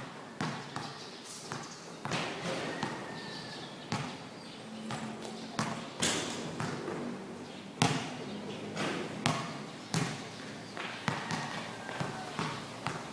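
A basketball bouncing on a court: a run of sharp thuds at uneven spacing, roughly one or two a second, with a short echo after each.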